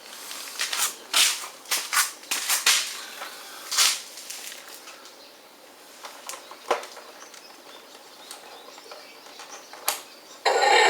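A run of short rustles and scrapes, like sand and grit being scooped and moved, sparser after a few seconds with an odd click. A loud steady noise starts suddenly near the end.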